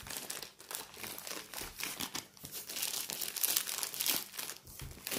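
Grey plastic courier mailer bag crinkling and rustling in a steady run of small crackles as it is pulled open and crumpled off a rolled parcel by hand.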